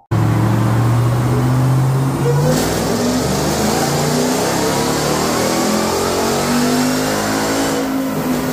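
2021 Ram TRX's supercharged 6.2-litre Hemi V8 running on a chassis dyno. It starts at light load, then makes a full-throttle pull from about two and a half seconds in, with a high whine rising as the revs climb. It eases off near the end.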